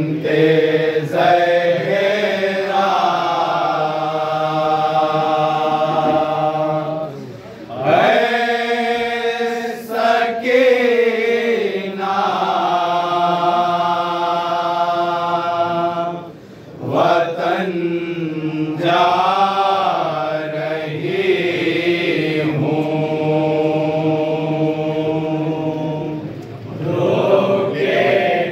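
A group of men chanting a noha, a Shia lament, together without instruments, in long held sung phrases with brief pauses between lines.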